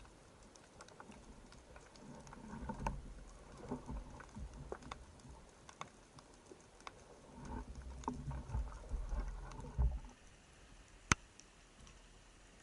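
Underwater ambience: scattered sharp clicks and crackles, with low rumbling water noise in two stretches and one sharp, loud click about eleven seconds in.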